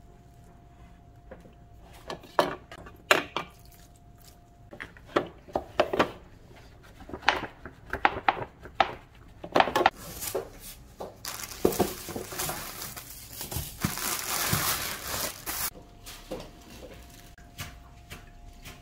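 Kitchen handling sounds: a run of knocks and clatters of dishes, utensils and a plastic cutting board, then several seconds of plastic crinkling and rustling near the middle.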